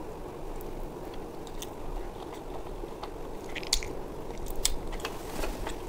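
A person chewing a mouthful of chicken biryani: scattered small mouth clicks and soft crunches, a couple of them louder near the middle.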